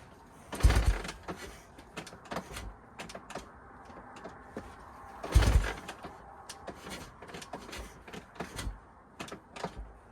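Two heavy thumps about five seconds apart, with clicks and knocks between them: the Honda XR600's kick-starter being stomped and the big single turning over without firing.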